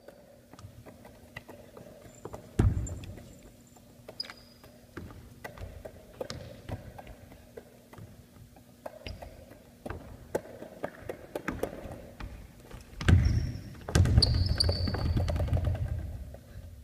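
Basketball dribbled on a wooden gym floor, with sharp bounces echoing in the large hall and a few short high sneaker squeaks. The bouncing turns louder and denser about thirteen seconds in.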